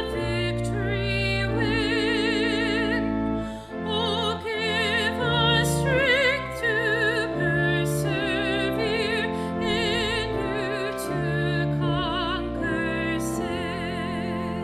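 Solo female vocalist singing with a wide operatic vibrato, accompanied by a church organ holding sustained chords.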